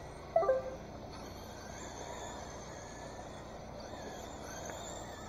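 Electric RC race cars running laps on a dirt oval, their motors giving a faint high whine that rises and falls as they pass, over a steady hiss. About half a second in, a brief pitched sound stands out as the loudest moment.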